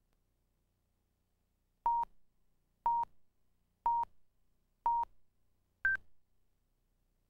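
Countdown beeps on a commercial tape's slate: four short tones at the same pitch about a second apart, then a fifth at a higher pitch.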